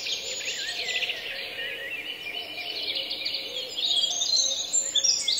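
Many small birds chirping and twittering at once, a busy, steady chorus of short high chirps that grows a little denser near the end.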